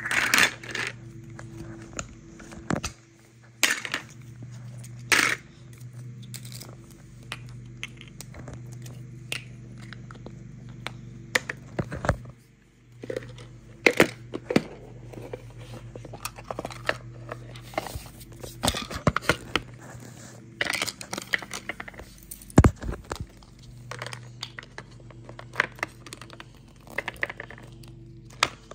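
Hard plastic toy dentist-set pieces being handled on a wooden tabletop: scattered sharp clicks, taps and crinkly scrapes as the parts are picked up, set down and a snap-lid plastic retainer case is pressed and opened. A low steady hum runs underneath.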